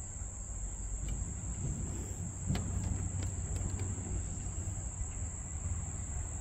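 Insects outdoors making a steady high-pitched buzz, over a low rumble and a few faint clicks about halfway through.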